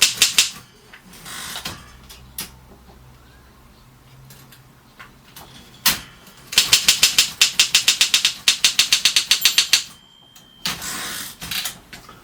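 1950 Mercedes office typewriter being typed on: a few key strikes, then a quick run of about six strikes a second, with the ribbon selector set so the type hits the paper without the ribbon. About ten seconds in a short ringing tone sounds, followed by a mechanical rattle of the carriage.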